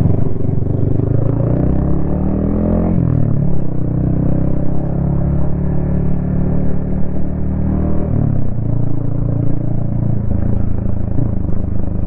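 Yamaha XSR155's single-cylinder engine running through a DIY exhaust while riding: the revs climb, then fall sharply about three seconds in with a gear change, pull fairly steadily, and drop and pick up again about eight seconds in.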